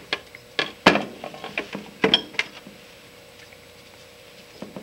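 Metal parts from a Durston ring sizing machine, clinking against each other and the metal solvent bucket as they are scrubbed clean with a brush. A handful of sharp clinks come in the first couple of seconds, the loudest about a second in.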